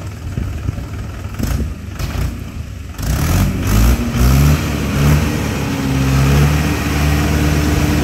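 A motor vehicle's engine running close by, becoming much louder about three seconds in, its pitch rising in steps and then holding steady.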